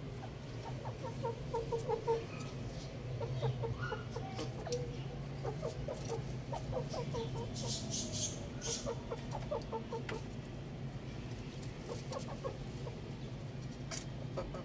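Young roosters clucking in quick runs of short notes, with a few sharp clicks in the middle.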